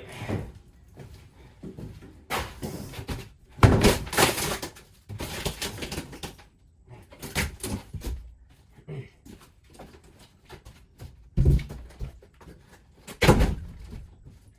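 Glued-down plywood floor board being pried and ripped up with a pry bar. Several rasping rips of wood tearing loose come in the first half, and two sharp knocks come near the end.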